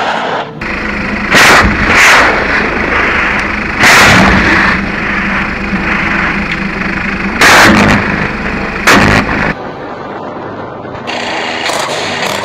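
Attack helicopters firing rockets: about five loud blasts, each lasting under a second, over the steady drone of the helicopters' engines and rotors.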